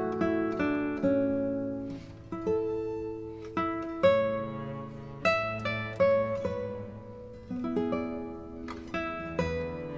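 Background music on a plucked acoustic guitar: single notes and chords, each struck sharply and left to ring and fade.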